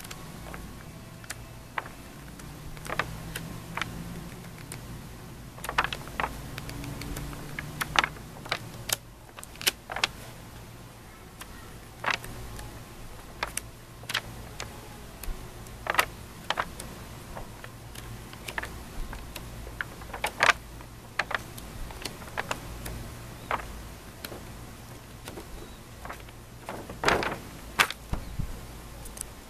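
Handling noise from a stiff old photo album: irregular sharp clicks and taps as its paper pages are turned and handled, over a low steady hum.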